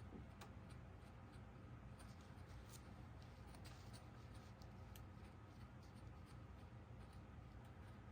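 Near silence with faint, scattered scratches and ticks of a comb being worked through a faux-fur beard, over a low room hum.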